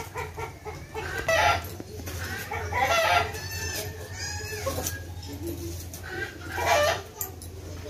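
Domestic chickens clucking and a rooster crowing, in several separate calls a second or two apart, over a steady low hum.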